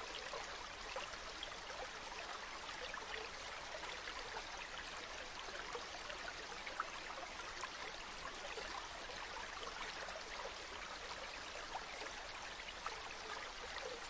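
Kolam powder trickling from the fingers onto a wooden board as lines are drawn: a steady gritty hiss full of tiny grain ticks.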